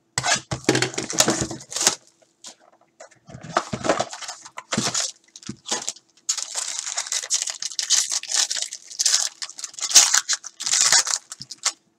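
Foil wrapper of a sealed trading-card pack crinkling and being torn open by hand, in several bursts of rustle and tearing with short pauses.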